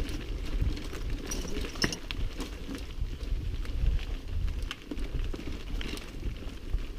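Mountain bike riding downhill over a rough, rooty dirt trail: a low rumble from the tyres on the ground, with irregular clicks and knocks of the chain and frame rattling.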